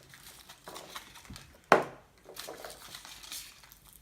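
Small hand-handling sounds of chocolate-egg foil and plastic toy capsules, faint rustling and crinkling, with one sharp loud click about a second and a half in.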